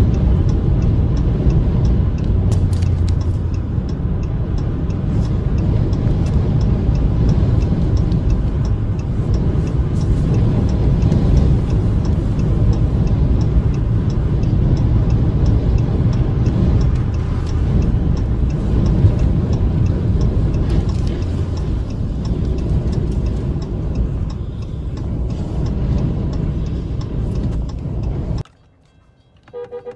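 Strong wind and road noise from a vehicle driving at highway speed: a loud, steady low rumble with faint scattered clicks, cutting off suddenly near the end.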